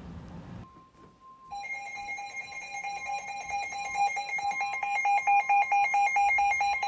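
Electronic alert alarm sounding at the start of a new severe thunderstorm warning: a shrill steady tone comes in about a second and a half in, then pulses quickly and grows steadily louder.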